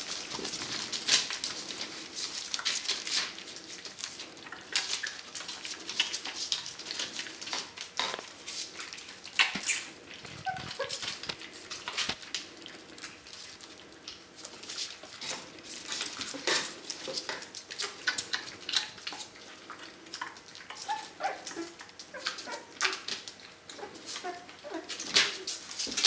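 A litter of four-week-old puppies eating dry kibble from a steel bowl and a plastic bowl: a constant stream of sharp clicks and clinks of food against the bowls, with a few short puppy whimpers about ten seconds in and again after twenty seconds.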